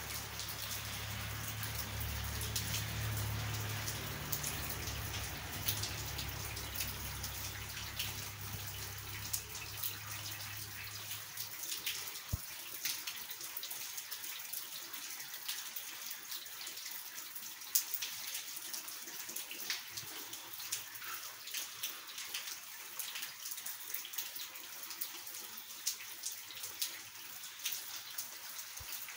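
Steady rain falling, with many close drops and drips ticking on hard surfaces. A low rumble under it stops abruptly about eleven seconds in.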